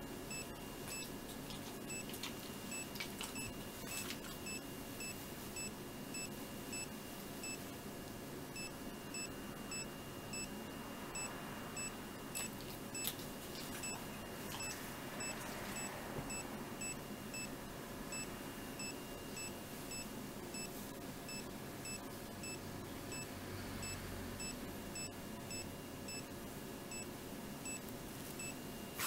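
Handheld ECG monitor giving short electronic beeps about twice a second, keeping time with the dog's heartbeat as it records.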